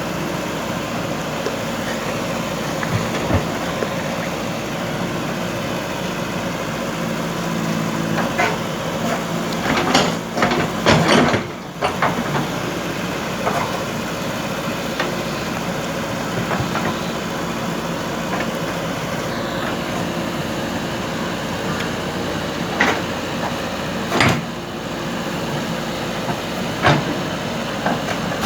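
Diesel engine of a JCB backhoe loader running steadily while it digs, with scattered knocks: a cluster about a third of the way in and single knocks later on.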